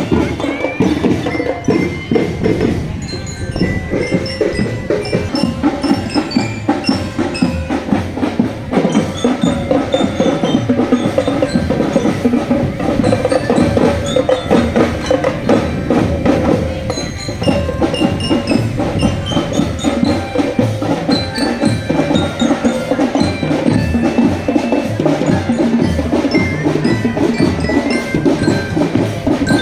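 Indonesian marching drum band playing: a dense, steady drum rhythm with a glockenspiel-like bell lyra melody ringing over it.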